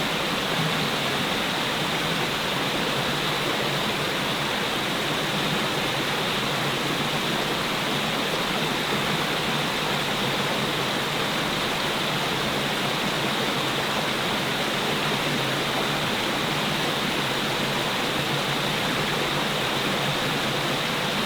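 Steady rushing water, an even hiss that holds unchanged throughout.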